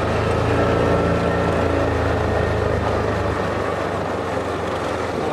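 Vehicle engine running steadily, a continuous low hum with a few faint steady tones above it.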